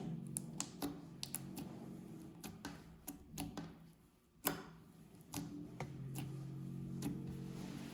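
Clear slime being worked by hand, giving irregular sticky clicks and pops, one sharper pop about four and a half seconds in, over faint sustained background music notes.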